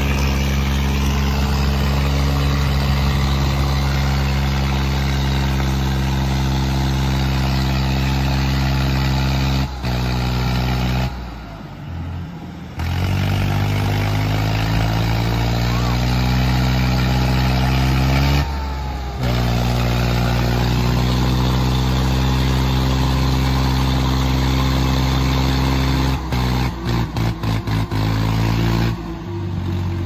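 Tractor diesel engines running hard at high revs under full load as a green John Deere and a red tractor pull against each other in a tug-of-war. The engine note sags and then climbs back up about halfway through, dips briefly again a few seconds later, and near the end the sound cuts in and out rapidly.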